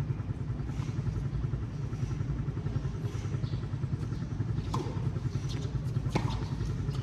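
Tennis ball struck by rackets twice during a rally, two sharp pops about a second and a half apart, over a steady low rumble.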